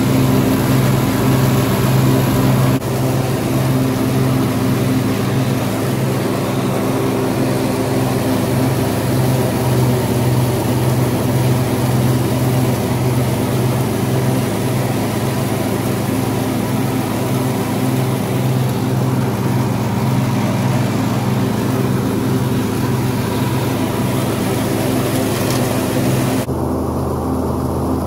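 Kubota T1600 riding mower's small two-cylinder diesel engine running steadily under load, with the rebuilt mower deck's blades spinning and blowing out chopped dry leaves; the freshly rebuilt spindles run as they should, without grinding. Near the end the sound turns more distant and duller.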